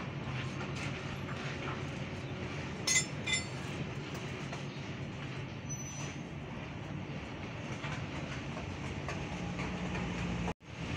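Two sharp metallic clinks about half a second apart, a steel hand tool against the truck's clutch pressure plate, over a steady low hum.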